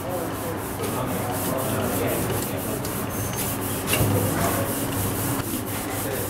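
Hands rubbing and pressing a ball of dough across a stainless-steel table dusted with coarse flour, a continuous gritty scuffing, over a steady low hum.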